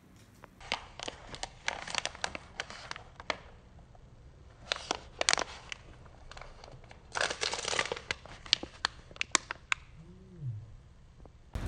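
Crinkling and crackling of a twist-wrapped peanut snack's wrapper as it is handled and unwrapped, in three spells of rustling with quiet gaps between.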